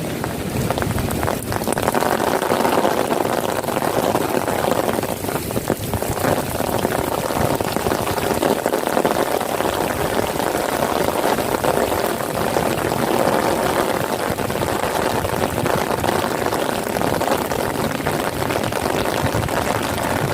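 Steady rain falling and spattering on a wet paved surface, an even hiss with no let-up.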